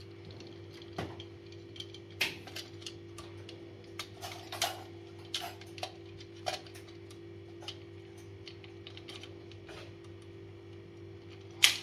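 Small screwdriver clicking and scraping against the terminal screws and plastic body of a wall socket as its wires are unscrewed: irregular sharp ticks, the loudest near the end. A low steady hum runs underneath.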